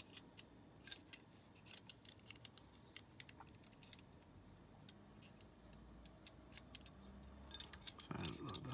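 Metal ring of a Hanayama Cast Box puzzle clinking and scraping against the cast metal cube as it is turned in the hands: a scattered run of light metallic clicks, busiest at the start and near the end.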